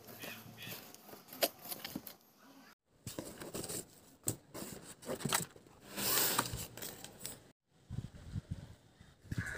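Cardboard shipping box being opened and handled: flaps rustling and scraping, with scattered sharp clicks and a longer scraping burst about six seconds in. The sound breaks off to silence twice for a moment.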